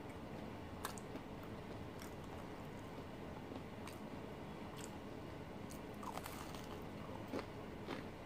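A person chewing crispy fried banana fritters (pisang goreng) with the mouth closed, with short crunches about once a second and a few close together near the end, over a faint steady hiss.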